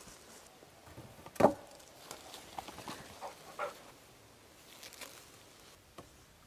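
Wooden knocks from logs being handled and stacked into a log wall: one loud sharp knock about a second and a half in, then a scatter of lighter knocks and clunks.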